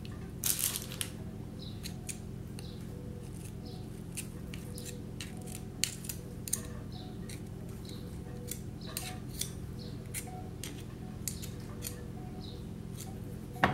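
Light clicks and taps of snail shells being handled and set down in a glass baking dish while they are stuffed with parsley butter, scattered irregularly over a steady low hum.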